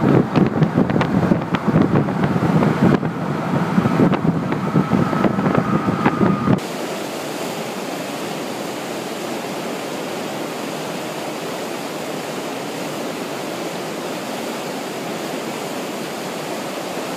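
Loud, buffeting road and wind noise in a car at highway speed. About six and a half seconds in it cuts to the steady rushing hiss of whitewater at a standing river wave.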